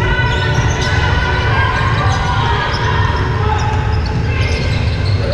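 Basketballs bouncing on a hardwood gym floor, several at once in an irregular patter, over the steady low hum of the hall.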